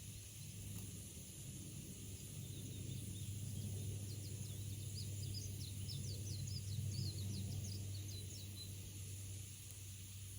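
A songbird singing a quick series of short, high chirping notes that starts a couple of seconds in and stops near the end, over a steady low background rumble.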